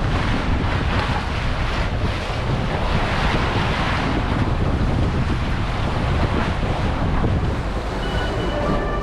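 Wind buffeting the microphone, a steady rushing, rumbling noise, with a few steady tones coming in near the end.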